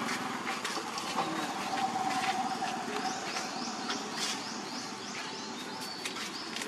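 Outdoor ambience with a bird singing a quick series of short falling high notes, about three a second, through the second half. Scattered small clicks sound throughout, and a faint steady tone runs through the first half.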